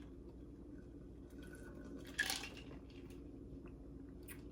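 Steady low hum with a brief handling or mouth noise about two seconds in and a few faint clicks near the end: small tabletop eating-and-drinking sounds.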